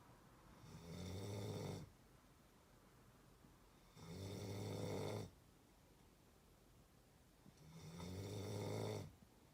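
Someone snoring in their sleep: three snores, each lasting just over a second, coming about every three and a half seconds.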